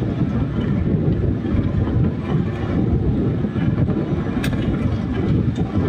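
Low, rough rumble of wind buffeting the microphones, with a few faint clicks, about four and a half seconds in.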